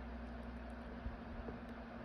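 A steady low hum and hiss of background room noise, with a faint click about a second in.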